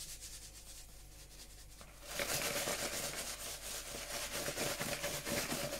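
Salt mill being twisted, a fast gritty grinding that gets louder about two seconds in.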